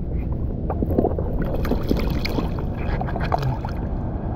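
River water sloshing and dripping around gloved hands as an old jar is lifted out at the surface. Many small splashes and drips sound over a steady low rush of water.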